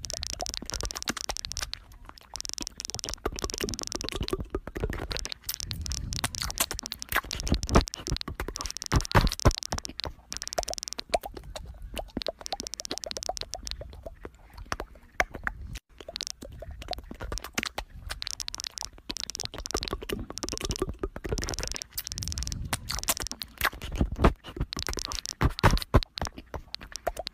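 Rapid, irregular clicking of a smartphone's on-screen keyboard as text is typed, with some low thumps in between.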